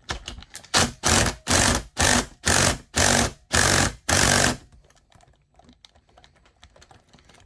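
A metal part being filed by hand: about eight rasping strokes, roughly two a second, that stop about halfway through, followed by a few faint clicks.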